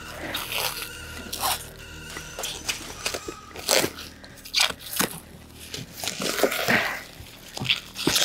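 Packaging being handled: plastic wrapping rustling and crackling, with scrapes and knocks from a sealed cardboard rod tube being worked at by hand.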